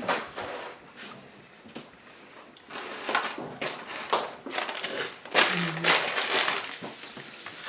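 Close-up chewing and crunching of food, in irregular crunches that come thick and fast in the second half.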